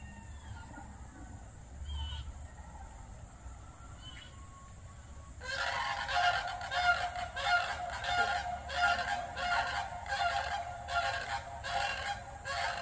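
A loud series of repeated bird calls, about two a second, starting abruptly about five seconds in, over faint birdsong chirps and a steady high hiss.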